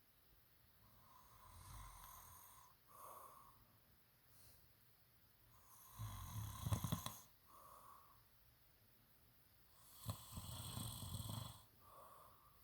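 A person snoring: a soft snore about two seconds in, then two louder snores about four seconds apart, with quiet breathing between.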